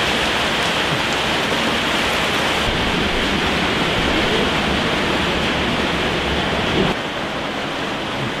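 A steady, loud hiss that drops slightly about seven seconds in, with faint voices under it.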